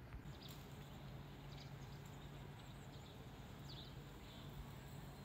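Quiet outdoor ambience: a faint steady low hum under a wash of background noise, with a few short, faint high-pitched chirps.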